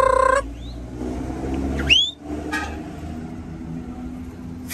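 Truck engine running while driving, heard from inside the cab. The end of a loud horn blast cuts off just after the start, and about two seconds in a short rising whistle is followed by a brief dip in the engine sound.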